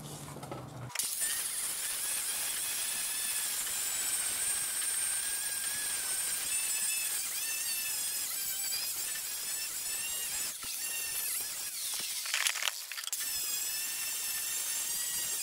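A 7-inch angle grinder with a 24-grit sanding disc grinding down weld beads on a patched steel mower deck. It starts about a second in, then runs as a steady high whine over a rough grinding hiss.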